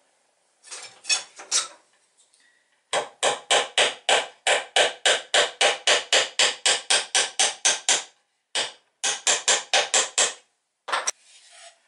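Small hammer tapping the metal bowsprit collar fitting into the wooden bow of a model boat. There are a few taps, then a steady run of about four taps a second for five seconds, a short pause, a second short run, and one last tap near the end.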